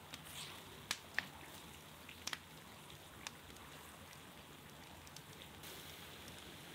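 Meat on the bone sizzling in hot fat in a pot: a steady crackle with a few sharp pops in the first half.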